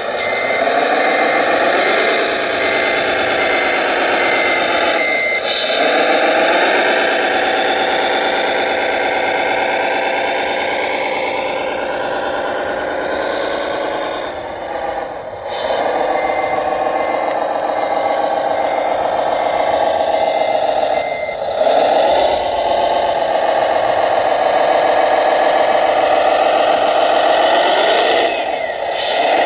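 A remote-control truck's sound module playing a simulated diesel truck engine that revs up and settles back several times. A reversing beeper beeps steadily twice, for a few seconds each time: the truck is backing up.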